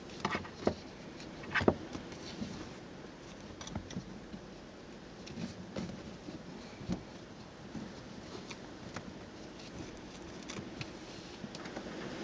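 Handling noise from the rear seat cushion of a car being pressed down and tucked into place: upholstery rustling and soft knocks, with a few sharp clicks in the first two seconds.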